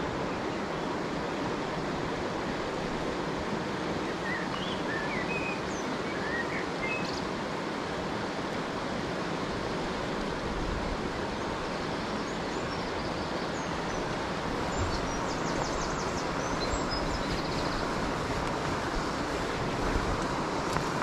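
Steady rush of a fast-flowing river running over shallow rapids, with a few short, high chirps about four to seven seconds in.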